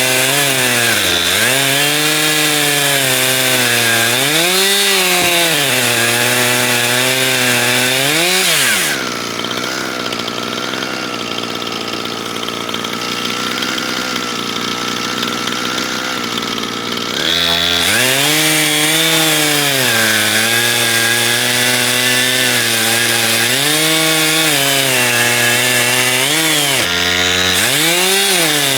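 Two-stroke chainsaw on an Alaskan-style chainsaw mill ripping a log lengthwise, its engine note repeatedly dipping and climbing back as the chain loads up in the cut. For about eight seconds in the middle the engine note gives way to a quieter, steady high whine before the labouring note returns.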